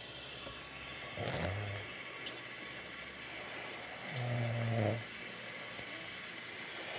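A man snoring in his sleep: two low, steady-pitched snores about three seconds apart, each under a second long.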